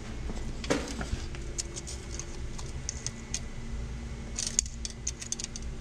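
Scattered light clicks and rattles from a steel tape measure being handled against a wheel hub, with a sharper knock about a second in and a cluster of clicks near the end. A steady low hum runs underneath.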